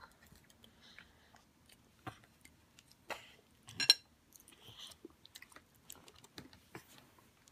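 A toddler eating spaghetti with a blue plastic fork: scattered small clicks, taps and chewing sounds, with one louder sharp clatter about four seconds in.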